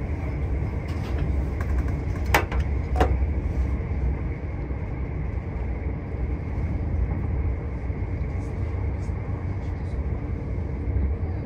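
Steady low rumble of a motor vehicle engine, with two sharp clicks about two and a half and three seconds in.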